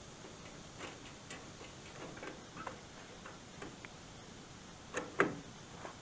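Scattered light clicks and taps of small parts being handled while a car headlight assembly is put back together, with two louder knocks about five seconds in.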